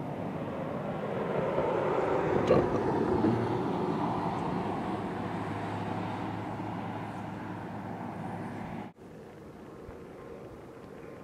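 A pickup truck passing on the road. Its tyre and engine noise swells over the first few seconds, then fades slowly, with a steady low engine hum underneath. The sound cuts off suddenly about nine seconds in, leaving quieter outdoor background noise.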